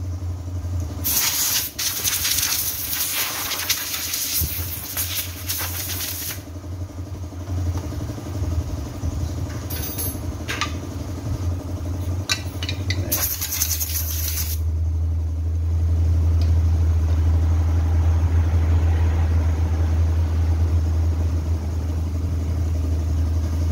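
Stihl 070 two-stroke chainsaw engine idling steadily, getting louder about 13 seconds in. Compressed air from a blow gun hisses for about five seconds starting a second in, and again briefly near the middle.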